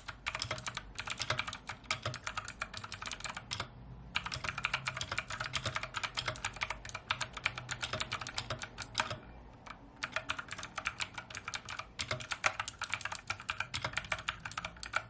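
Fast typing on a Redragon K552W mechanical keyboard with blue switches: a dense run of loud, clicky keystrokes, with two short breaks, one about four seconds in and one around nine and a half seconds.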